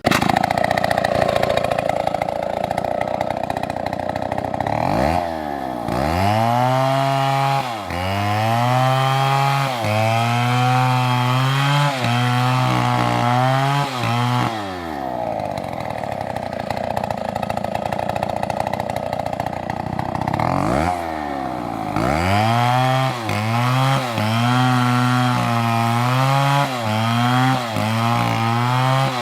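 Chainsaw at full throttle cutting wood: it runs at a high, even pitch, then bogs down to a lower, wavering pitch as it bites into the wood about five seconds in. It revs back up near the middle and drops into the cut again for the last part.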